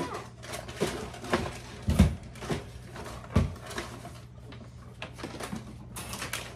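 Household handling noises: plastic and paper packaging rustling, with scattered clicks and knocks. The loudest is a dull thump about two seconds in, and another knock comes a second or so later.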